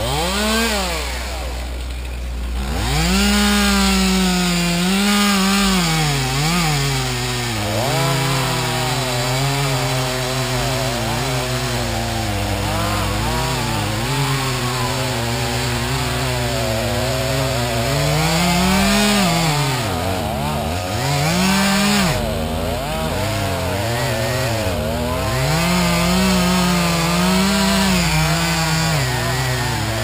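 Two-stroke gas chainsaw revved once and let drop toward idle, then held at full throttle from about three seconds in while cutting into a tree stump. Its pitch sags and recovers over and over as the chain bites into the wood.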